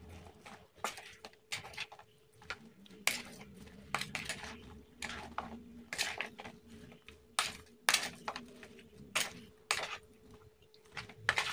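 A spoon stirring and scraping through a bowl of sliced spices, oil and salted fish, with irregular clicks of the spoon against the bowl.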